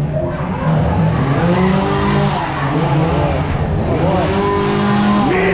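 Haunted-attraction sound effects: overlapping screeching whines that rise and fall in pitch, over a steady low drone.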